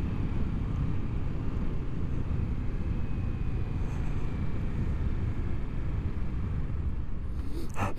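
Steady wind noise on the microphone mixed with the running of a Kawasaki Ninja 650's parallel-twin engine as the motorcycle slows from about 70 to 50 km/h.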